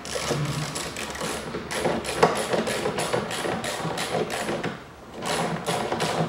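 Hand ratchet clicking in quick, even runs as the bolts holding the fan shroud to the radiator are screwed in, with a short break about five seconds in.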